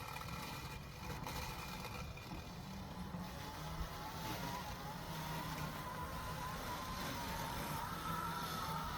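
BESTMOW T100 robotic lawn mower running as it mows: a steady low motor hum with a faint wavering whine that becomes clearer about four seconds in.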